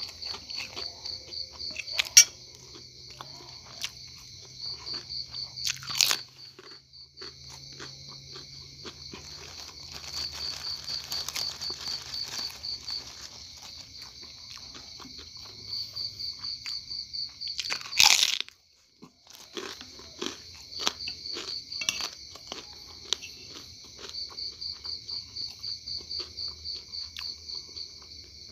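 Close-up eating sounds: bites and chewing of fried tempe mendoan and rice, with a few sharp clicks, the loudest past the middle. Crickets chirp steadily in quick pulses behind it.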